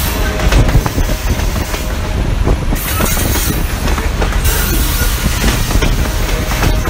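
Freight train of covered hopper cars rolling past at close range: a steady heavy rumble with wheels clacking irregularly over the rail joints.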